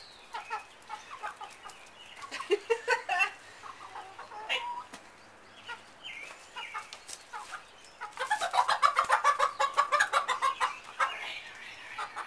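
Hens clucking in short, scattered calls, then about eight seconds in a hen breaks into loud, rapid squawking lasting about three seconds, the alarm of a hen being caught by hand.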